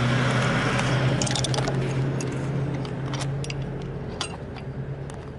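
Metal clicks and clinks of hand tools on the engine while diesel injectors are being unfastened, a handful of short sharp ticks over a steady low hum.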